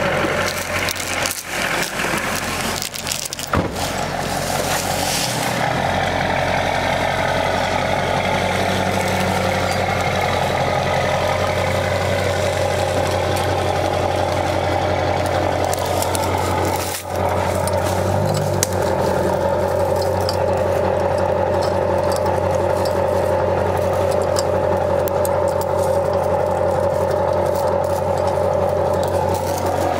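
Pickup truck engine idling steadily, with a couple of sharp knocks in the first few seconds.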